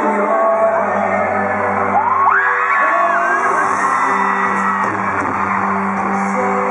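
A male singer holding long notes over band accompaniment, heard from the audience of an arena concert, with fans screaming and whooping over the music about two to three seconds in.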